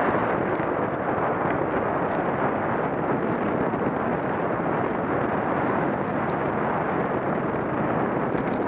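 Wind buffeting a helmet-mounted camera's microphone as a downhill mountain bike rolls fast over loose gravel, a steady rushing roar with tyre crunch and occasional small clicks from stones and the bike.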